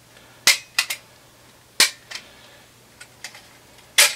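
Sharp plastic and metal clicks and snaps as a floppy disk drive's parts are prised and worked loose by hand. There are about six of them, irregularly spaced, some in quick pairs, with the loudest about half a second in and near the end.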